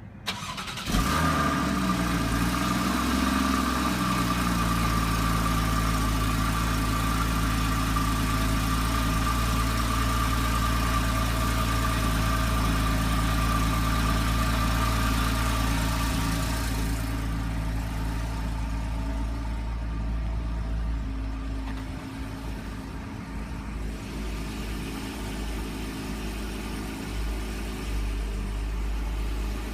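Porsche Cayman engine starting about a second in: the revs flare and settle over a few seconds into a steady idle. About two-thirds of the way through, a hiss above the engine stops and the idle becomes a little quieter.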